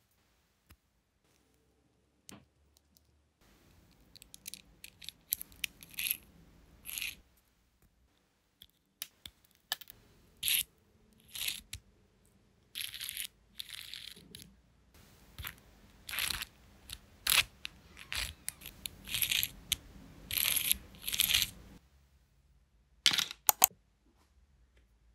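3D-printed plastic zipper fidget worked by hand: the slider is run back and forth along the printed teeth, giving a series of short rattling zips and clicks with brief pauses between them. Two sharp clicks come near the end.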